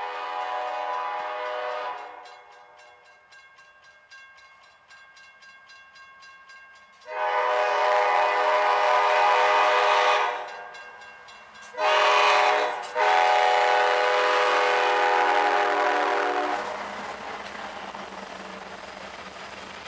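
CSX freight locomotive's air horn: a blast that fades about two seconds in, then a long blast, a short one and another long one, the long-long-short-long pattern sounded for a grade crossing. Near the end the locomotives and freight cars rumble past close by.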